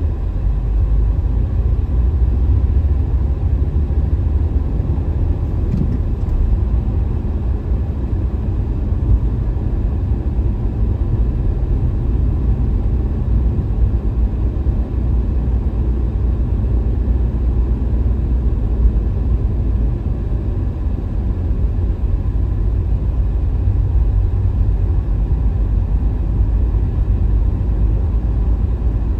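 A car driving along a city street: a steady low rumble of engine and road noise with no sudden sounds.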